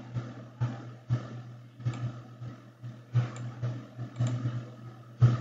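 A handful of short computer mouse clicks at uneven intervals over a steady low electrical hum.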